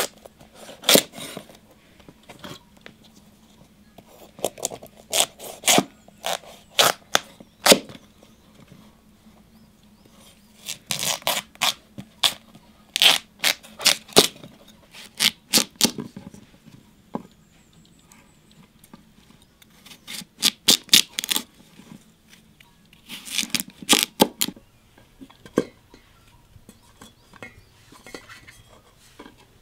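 A large kitchen knife cutting through raw pumpkin and scraping out its seeds and stringy pulp, in bursts of crisp cracks, scrapes and knocks of the blade against a wooden cutting board, with quiet pauses between them.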